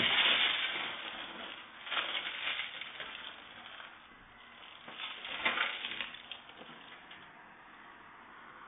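A van's side window being smashed and broken out, heard through a security camera's microphone: crunching, crackling bursts of breaking glass, the loudest at the start, then two more about two and five seconds in.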